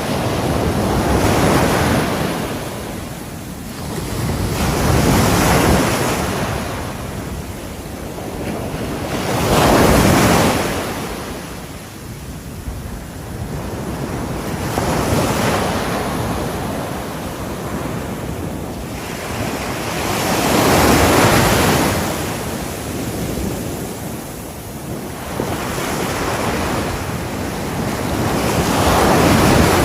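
Ocean surf breaking on a shore, the roar swelling and falling away as each wave comes in, about every four to five seconds.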